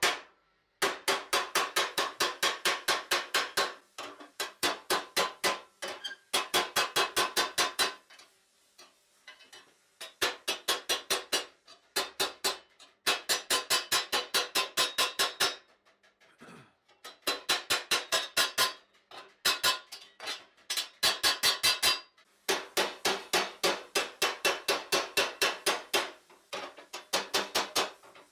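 Small hammer beating a hot steel visor plate over a metal stake: fast runs of ringing metal-on-metal blows, about six a second, each run lasting a few seconds with short pauses between.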